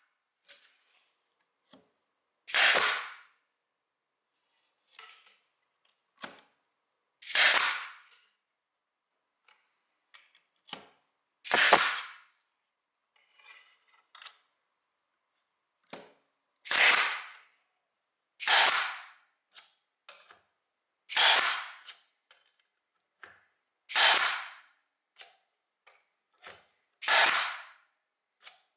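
Parkside PDT 40 G5 pneumatic stapler firing about eight times, a few seconds apart. Each shot is a short, sharp burst, with faint clicks and knocks of handling between shots.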